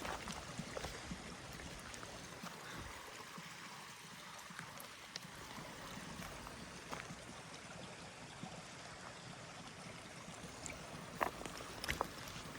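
Steady rushing of a stream or other flowing water, with scattered light clicks and two sharper clicks near the end.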